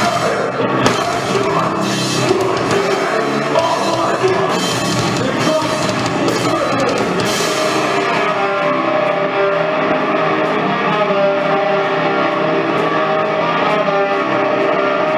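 Rock band playing live in a heavy metalcore/punk style: distorted electric guitars, bass and drum kit. About eight seconds in, the dense full-band playing drops away to sustained ringing guitar chords over a steady high ticking.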